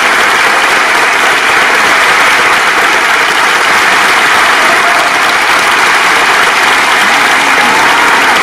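Concert audience applauding steadily and densely, heard from among the seats.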